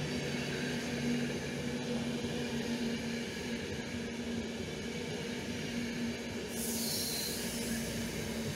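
RegioJet passenger coaches rolling past on the track: a steady rumble of wheels on rail with a low hum. A high hiss comes in about six and a half seconds in.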